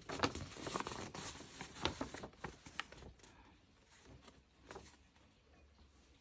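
Paper rustling and crinkling as it is handled and unfolded, with sharp crackles over the first three seconds, then only faint rustles.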